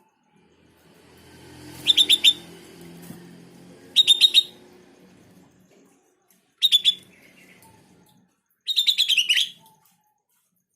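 Sooty-headed bulbul (kutilang) calling: four short bursts of quick chattering notes, each of three to six notes, a couple of seconds apart, with the last burst the longest and falling in pitch at its end.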